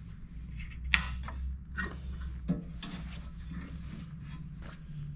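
A few light clicks and taps of stainless steel parts being handled at an espresso grinder, with one sharper click about a second in, over a low steady hum.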